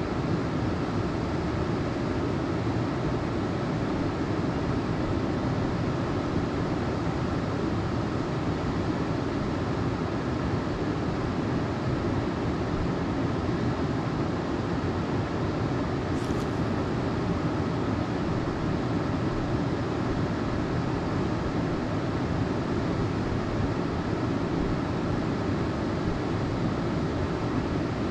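Steady rushing of creek water, an even roar that does not change.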